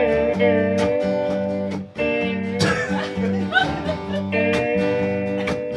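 Live band music led by guitar, with held melody notes over a steady low bass line.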